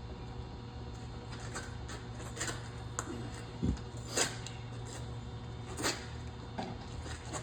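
Scattered metal clanks and knocks from handling steel bar stock and chucking it in a lathe, with one duller thump in the middle, over a steady low hum.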